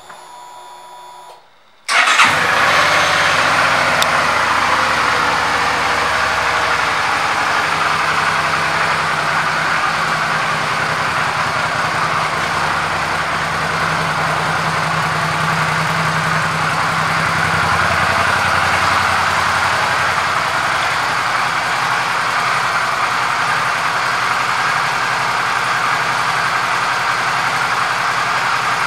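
2011 Suzuki V-Strom 650's 645 cc V-twin engine. It comes in abruptly about two seconds in, then idles steadily.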